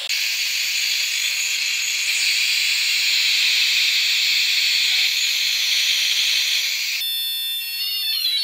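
Loud, steady hiss from a homemade walkie-talkie receiver's speaker: the circuit's noise, not cured by a filter on the output. About seven seconds in it changes suddenly to high-pitched whistling tones.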